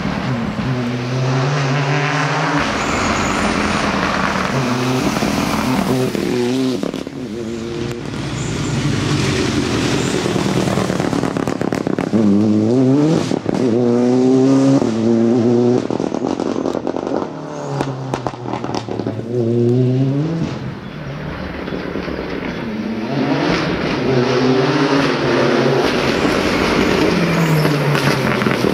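Fiat 124 Abarth rally car's turbocharged four-cylinder engine revving hard as the car accelerates through the gears. Its pitch repeatedly climbs steeply and then drops at each quick upshift, over several passes on a wet tarmac stage.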